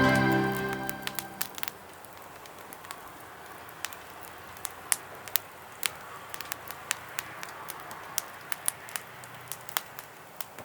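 Small pellet fire crackling, with sharp, irregular pops over a faint hiss. Background music fades out in the first second or two.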